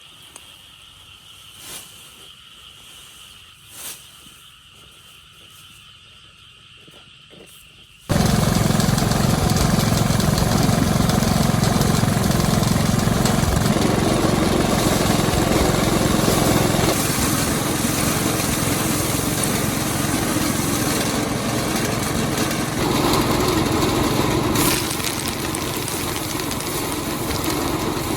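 Quiet ambience with steady high thin tones and two light knocks; then, about eight seconds in, a small engine abruptly starts running loudly and steadily.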